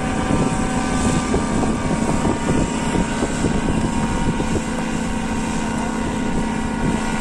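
Paramotor engine and propeller running steadily at a constant pitch.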